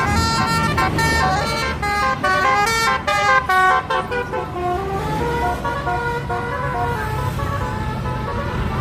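Basuri telolet multi-tone horn playing a melody: several tones sound together and step from note to note, quickly for the first few seconds, then in slower, longer notes. A vehicle engine runs low underneath.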